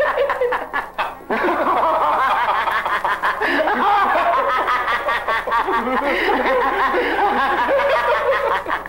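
Two men laughing hard together in long, continuous bouts, with a brief break about a second in.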